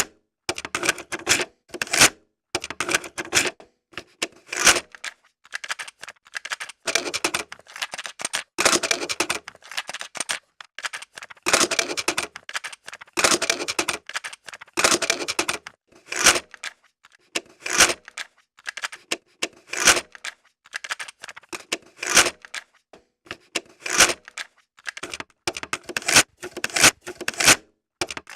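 Cassette player's eject mechanism worked over and over: sharp plastic clicks and clacks as the cassette pops out and is handled, repeating about every one to two seconds with short pauses between.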